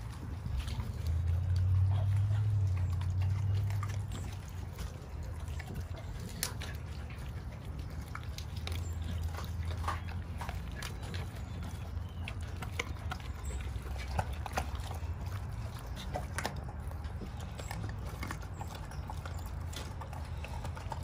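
A pit bull-type dog chewing raw chicken leg quarters, bone and all: many short, irregular wet crunches and cracks. A low rumble underlies them and is loudest about one to four seconds in.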